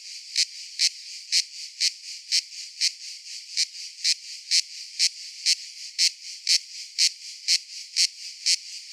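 Cicada calling: a steady high buzz with louder pulses repeating about twice a second.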